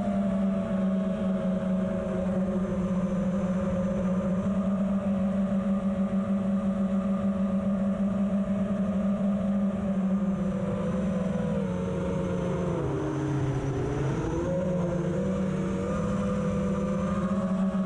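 FPV quadcopter's electric motors whining at a steady pitch. The pitch dips for a couple of seconds about two-thirds of the way through, then climbs back as the throttle changes. Wind rumbles on the microphone underneath.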